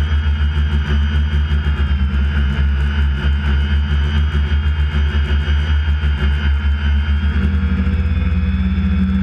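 A motor running steadily with a pulsing low throb and a fainter steady whine above it; from about three quarters of the way in the throb quickens.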